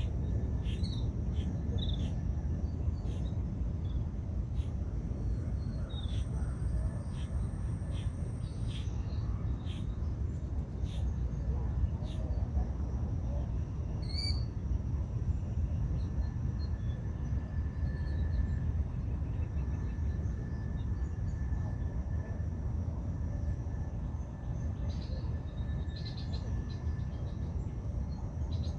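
Steady rushing of a river, with small birds giving short high chirps now and then, most often in the first half and again briefly near the end.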